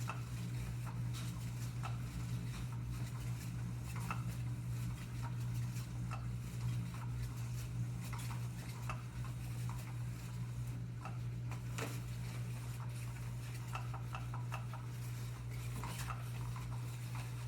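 Light, irregular clicks and taps of cats batting at a plastic cat toy, over a steady low hum.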